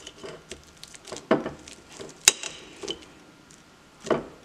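Bananas being mashed with a fork in a cooking pot: soft squishing with scattered clicks of the fork against the pot, the sharpest about two seconds in.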